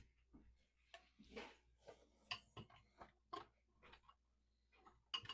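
Dishes and kitchenware clinking and knocking as a dishwasher is unloaded: scattered light clicks at irregular intervals, with a louder clatter near the end.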